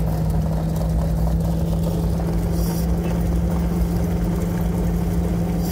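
Mobile starting-gate car driving, its engine and road noise a steady low drone with a constant hum, heard from inside the cabin.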